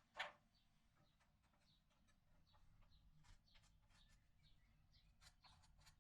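Near silence with faint, short high chirps of birds in the background, and a single soft tap about a quarter second in.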